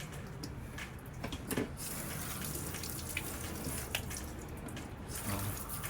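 Tap water running into a sink, starting up about two seconds in, with a few light clicks and knocks.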